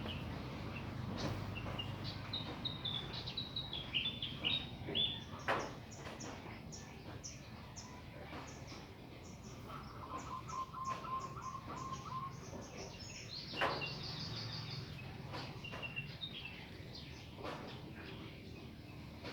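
Small birds chirping and calling, several overlapping, with a fast run of short high chirps through the middle and a lower run of short notes about ten seconds in. Two sharp clicks stand out, over a low steady background rumble.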